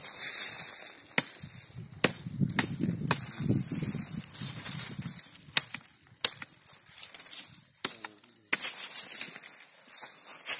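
Dry fallen leaves crunching and rustling under a person's hands and knees, broken by several sharp snaps of small twigs at the base of a custard apple tree.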